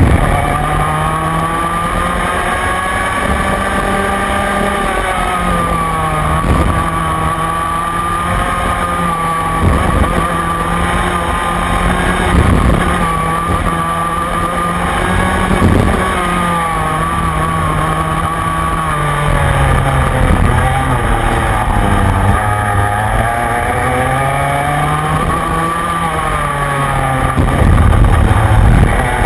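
Rotax Mini Max 125cc two-stroke kart engine heard from on board under racing load, its pitch climbing as it accelerates and dropping each time the driver lifts for a corner, several times over. It gets louder near the end.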